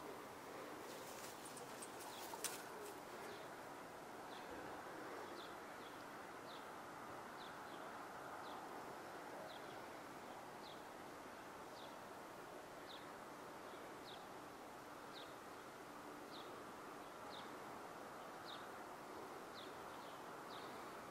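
Faint outdoor background noise with a small bird repeating a short, high, falling chirp about once a second. A few sharp clicks come early, the loudest about two and a half seconds in.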